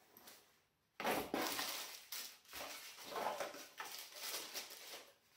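Rustling and crinkling of things being handled, with small irregular clicks and knocks; it starts abruptly about a second in, after a moment of silence.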